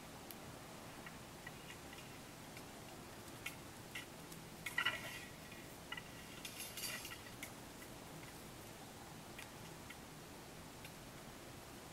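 Plastic craft lace (gimp) being handled and woven by hand into a lanyard: faint scattered ticks and clicks, with two brief louder crinkling rustles about five and seven seconds in.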